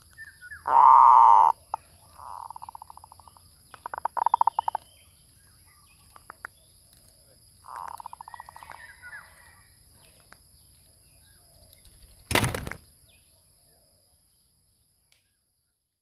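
Zebra dove calls: four trilled, rapidly pulsed coo phrases in the first ten seconds, the first the loudest. A single sharp knock comes about twelve seconds in, then the sound stops.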